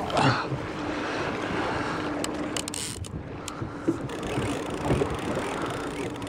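Wind on the microphone and choppy water slapping a fishing boat's hull, while a line-counter baitcasting reel is cranked to bring in a hooked fish. A low steady hum runs for the first three seconds, with a few light clicks.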